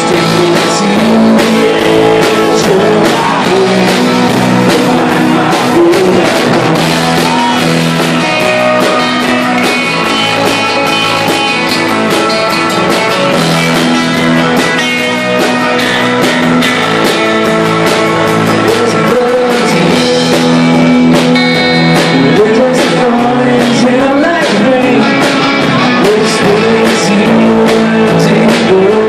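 Live rock band playing: electric guitars, bass and drums, with a man singing lead.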